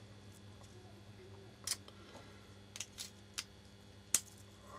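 About five small, sharp clicks of a Benchmade Mini Griptilian folding knife's parts being handled and fitted together by hand during reassembly, over a low steady hum.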